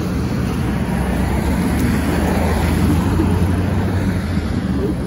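Road traffic noise: a steady low rumble of passing cars that swells slightly two to three seconds in.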